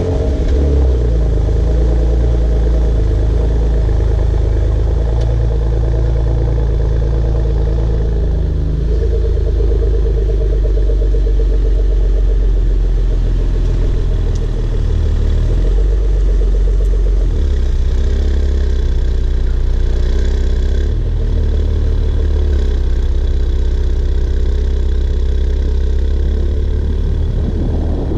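2015 Porsche Macan S's twin-turbo V6 idling steadily just after being started.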